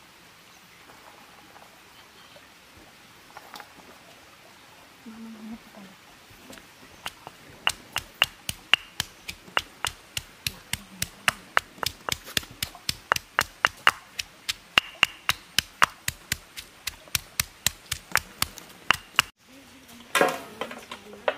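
Stone pestle pounding onion and green paste in a stone mortar: a steady run of sharp knocks, about three a second, stone striking stone. Near the end, after a break, a short clatter of raw chicken pieces tipped from a steel bowl onto a steel plate.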